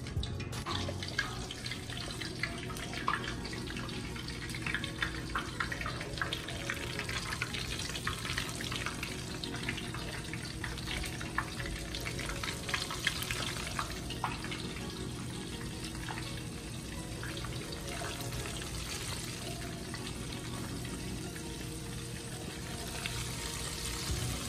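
Flour-coated chicken pieces frying in hot oil in a pan: a steady sizzle with many small pops and crackles.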